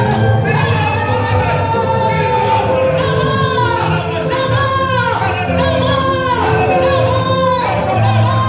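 Church worship music: a sung melody over a steady band accompaniment with a strong bass.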